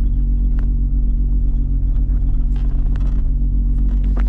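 Cammed VR6 engine of a Volkswagen Mk3 idling steadily, with a few light clicks over it.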